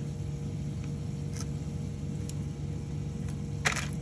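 Steady low background hum with a few faint clicks, and near the end a sharper click as a metal spoon is set down on foil-wrapped food.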